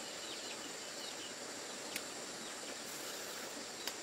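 Steady rural outdoor ambience: a constant high insect hum with a few faint bird chirps at the start. Two light clicks, about two seconds in and near the end, of a spoon or chopsticks against a china bowl.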